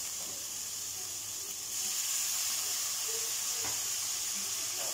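Chicken cubes frying in tikka masala in a hot wok, a steady sizzle and hiss that jumps louder about two seconds in as a splash of water hits the hot pan and turns to steam.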